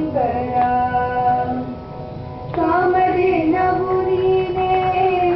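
Women singing a devotional invocation song in long held notes, with a short pause about two seconds in.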